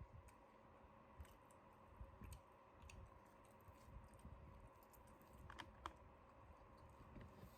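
Faint, scattered clicking and crackling of fried chicken being eaten, with two sharper clicks about three-quarters of the way through, over a steady faint electrical hum.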